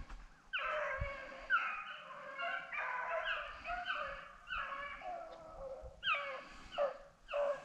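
Hunting hounds baying in a steady string of drawn-out cries, more than one voice overlapping, each cry dropping in pitch at its end: the hounds giving voice as they run a rabbit's trail.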